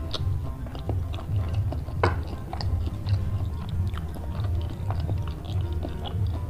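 Close-miked chewing of a mouthful of food, with many small mouth clicks.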